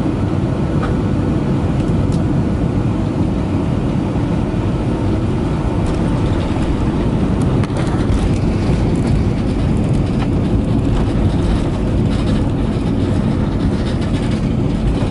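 Steady low roar of a jet airliner heard from inside the cabin as it rolls down the runway after landing, with a few light rattles about halfway through.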